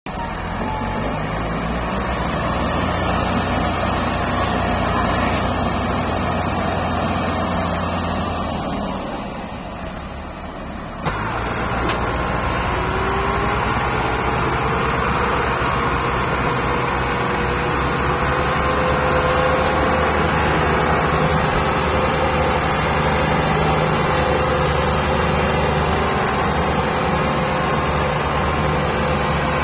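Several diesel farm tractors running hard under heavy load, straining together to pull a loaded sugarcane trolley. The sound drops briefly and comes back suddenly about a third of the way through.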